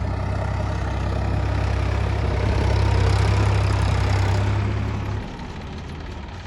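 Heavy diesel engine running steadily with a strong low hum, growing louder in the middle, then dropping off sharply about five seconds in.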